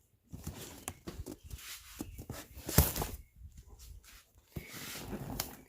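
Handling noise: scattered light knocks and rustles as things are picked up and moved, with one sharper knock about three seconds in.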